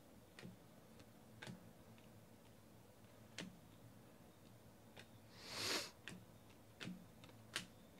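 Trading cards being flipped through by hand: a few light, irregularly spaced clicks as cards are slid off the stack, and one louder sliding swish about five and a half seconds in.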